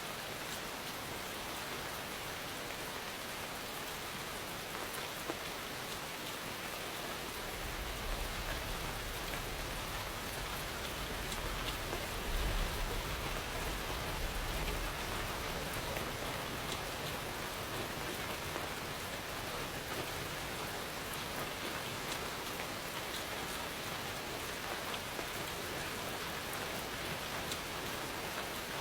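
Steady rain falling and pattering on surfaces, with scattered drop ticks. A low rumble of distant thunder swells about eight seconds in and fades out after about fifteen seconds.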